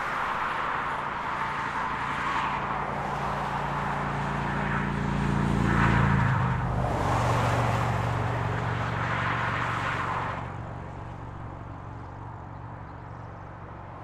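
Interstate traffic passing beneath an overpass: tyre noise swells and fades as each car goes by. About six seconds in, a pickup truck towing a large trailer passes, its engine drone the loudest sound and dropping in pitch as it goes by. The road goes quieter near the end.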